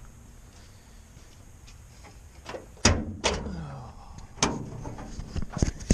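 A few loud knocks and clunks of a door being worked, the first followed by a short sliding scrape that falls in pitch, then a run of smaller clicks near the end.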